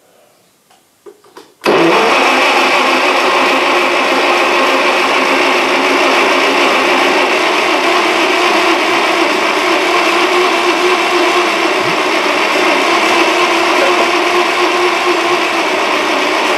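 Wisconsin THD engine being turned over by its electric starter: a loud, steady whir that starts suddenly about two seconds in and stays even throughout.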